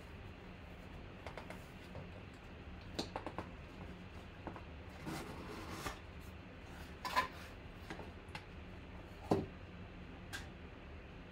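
Cardboard box being opened by hand: flaps folded back and an inner box slid out, with scattered light rustles and clicks. A sliding scrape comes about five seconds in, and two sharper knocks follow, one about seven seconds in and one about nine seconds in.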